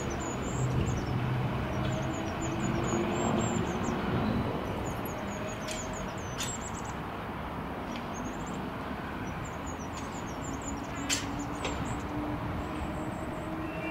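A third-rail suburban electric multiple unit pulling away from the platform, its motors humming and wheels running on the rails, easing off a little as it recedes. Birds chirp throughout, with one sharp click about 11 seconds in.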